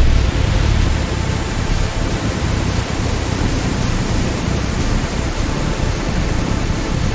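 Aircraft engine running at high power: a loud, steady rushing roar with no distinct pitch, heaviest in the low end.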